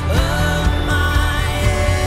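Live worship band music: a full band with a steady low beat under a sung vocal line.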